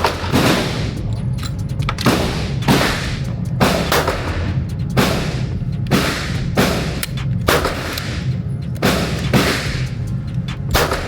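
Handgun shots at a shooting range: about a dozen sharp reports at irregular spacing, each trailing off in a short echo.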